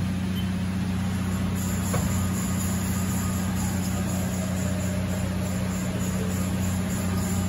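Steady low hum of a powered-up 2000 Haas VF-6 vertical machining center standing idle, with a faint click about two seconds in.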